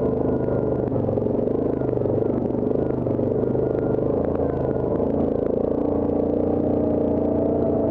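Yamaha Grizzly ATV engine running at low trail speed, its pitch rising a little about five seconds in, with light clatter and knocks as the machine rolls over rocks and ruts.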